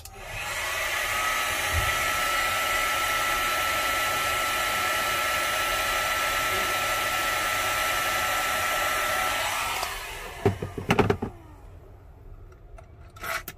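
Hot air gun blowing steadily with a high whine in the airflow, switched off about ten seconds in and winding down. A few short knocks of handling follow.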